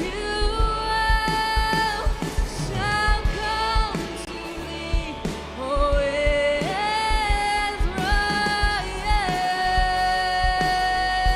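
Live worship band playing with a lead singer over a steady drum beat; the singer holds one long note from about nine seconds in.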